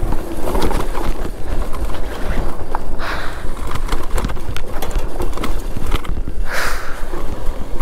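Super73 S2 e-bike riding over a rough dirt trail: steady rattling, knocking and crunching from the bike and ground, with heavy wind rumble on the microphone.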